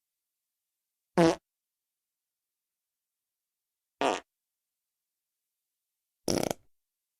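Three short fart sound effects, each lasting a fraction of a second and separated by dead silence. The last one sputters in several quick pulses.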